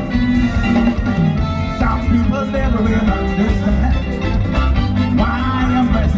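Live band playing loudly through a PA system: bass guitar, electric guitar, keyboard and drum kit.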